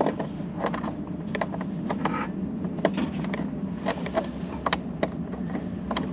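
Small sharp clicks and taps of metal hand tools being handled, a Torx bit and extender, over a steady low hum.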